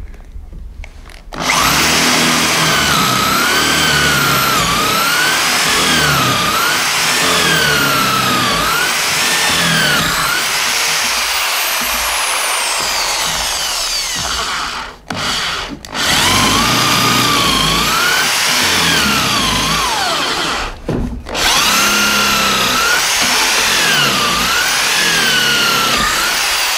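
Corded electric drill in a portable drill stand, boring a 16 mm hole right through a thick wooden beam for a dowel. The motor whine rises and falls repeatedly as the bit bites and frees in the wood. It starts about a second and a half in and stops briefly twice, once a little past halfway and once about three quarters of the way through.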